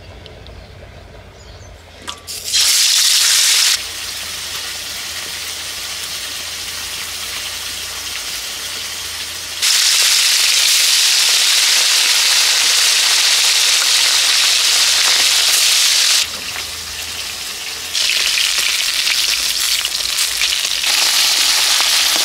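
Khoyra fish coated in salt and turmeric frying in hot mustard oil in an aluminium wok: a steady sizzle that starts about two and a half seconds in and grows much louder in long stretches.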